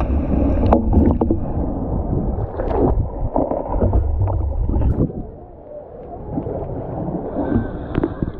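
Pool water sloshing and splashing around a camera at the waterline as an Asian elephant swims close beside it, with gurgling and scattered knocks; louder in the first five seconds.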